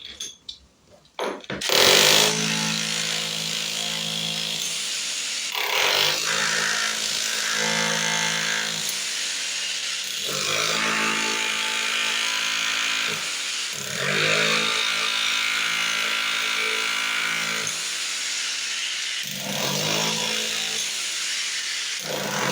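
Handheld electric power tool starting about two seconds in and running under load, opening up the surface over a hidden leak. Its motor pitch dips and recovers four times as it bites.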